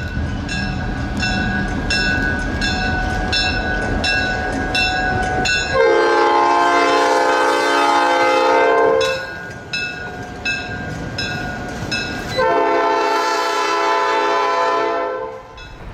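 A grade-crossing bell dings steadily over the low rumble of an approaching train. The lead CSX SD70AC locomotive's multi-chime air horn then sounds two long blasts, about six and twelve and a half seconds in, with the bell ringing between them.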